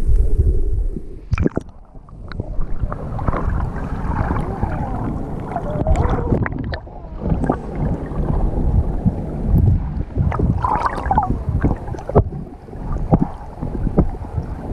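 Muffled underwater noise from a camera submerged in shallow sea water: a steady low water rumble with bubbling gurgles and scattered sharp clicks.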